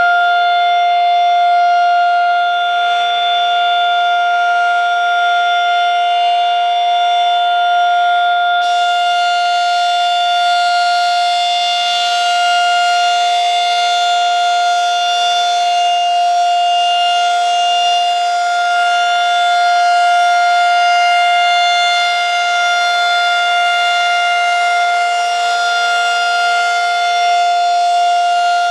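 Federal Signal 2001-130 outdoor warning siren sounding a steady tone during a siren test, its loudness slowly swelling and easing.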